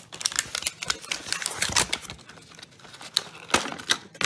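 Hot Wheels blister pack being opened by hand: an irregular run of sharp clicks, snaps and crackles of stiff plastic and card.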